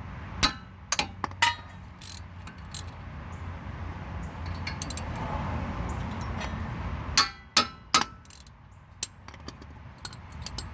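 Sharp metallic clinks and clicks of hand tools on a brake caliper as its 12 mm slide-pin bolts are undone: a few in the first seconds, then a cluster about seven seconds in.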